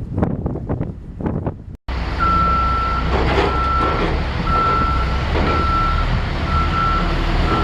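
Wind buffeting the microphone, then after a sudden cut a large vehicle's reversing alarm beeping steadily about once a second over a low engine rumble.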